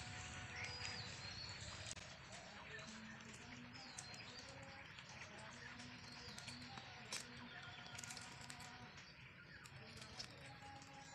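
Faint outdoor ambience with small birds chirping on and off, and a few brief soft knocks or splashes.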